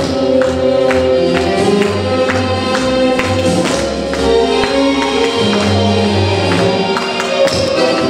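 Ballroom tango music with held melody notes over a steady, marked beat of about two strikes a second.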